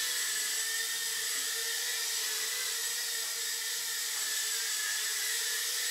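Eachine E011 micro quadcopter's small brushed motors and guarded propellers whirring in flight: a steady, high-pitched buzzing whine that wavers slightly in pitch.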